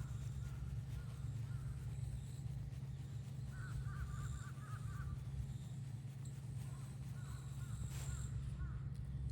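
Birds calling in short, curved notes, with a quick run of calls a few seconds in and a few more near the end, over a steady low rumble.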